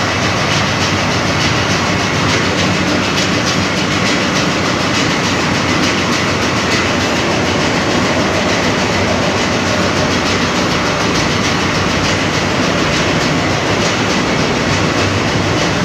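Loud, steady machinery noise in a ship's engine room, where large multi-cylinder marine diesel engines are running, with a fast, even clatter.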